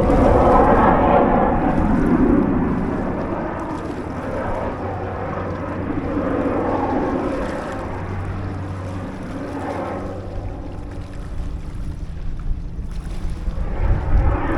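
Wind buffeting the microphone over a steady engine drone that swells and fades.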